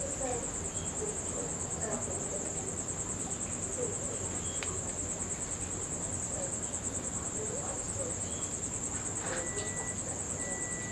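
Crickets trilling in a steady, high-pitched, unbroken chorus. A single faint click comes about four and a half seconds in, and a short steady tone sounds twice near the end.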